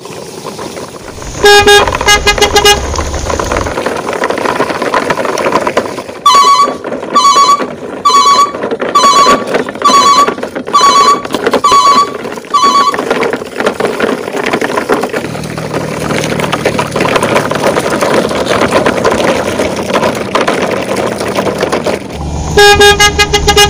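Vehicle horn honking. First comes a quick run of short low honks, then eight evenly spaced higher-pitched beeps about one every 0.8 seconds, then another quick run of low honks near the end. A steady rushing noise runs underneath.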